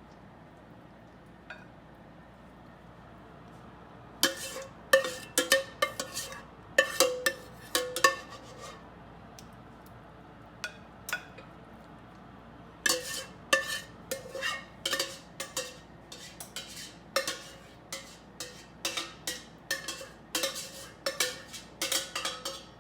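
Metal utensil clinking and tapping against cookware in quick runs of ringing knocks, with short pauses between the runs.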